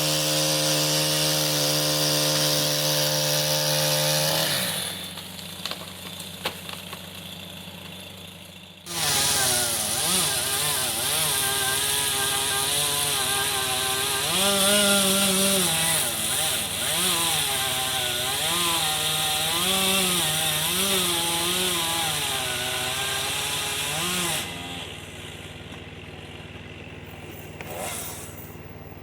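Chainsaw running at a steady speed, dropping quieter for a few seconds, then cutting into wood for about fifteen seconds, its pitch repeatedly dipping and rising under load before it falls away near the end.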